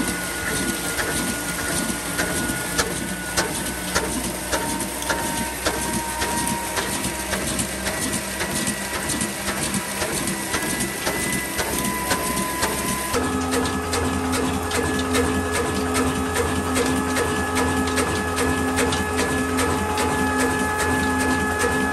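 Hundred-year-old 22 HP black oil (diesel) stationary engine running, with an even rhythmic beat of clicks and knocks from its valve gear and fuel pump. About two-thirds of the way in the sound changes to a steadier hum under the same beat, as its flywheel and flat belt drive a corn grinding mill.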